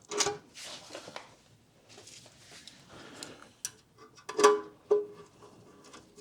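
Metal parts of the aluminium toolbox and its mounting bracket being knocked while the rubber strip is worked into place. Several sharp clinks each ring with the same clear note, with light clicks and rubbing between them.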